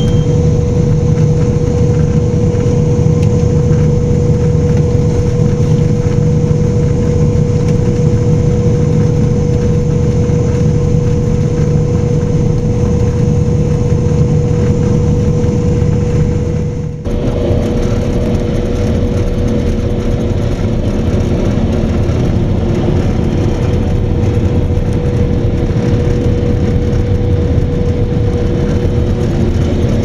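Claas Lexion combine harvester running, heard from inside the cab: a steady loud drone with a constant whine, dipping briefly about two-thirds of the way through.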